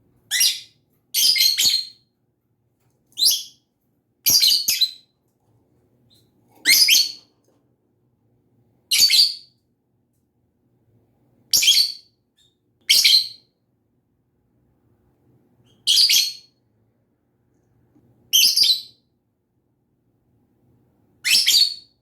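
Lovebird giving about eleven short, shrill chirps, one every second or two, with quiet gaps between them.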